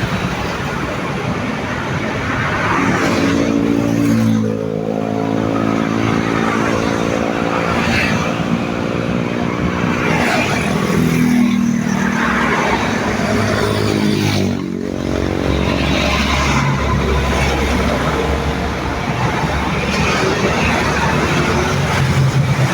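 Traffic passing at speed on a main road, buses among it: a steady rush of engines and tyres. Two close pass-bys, about four and fifteen seconds in, with the engine note dropping in pitch as each vehicle goes by.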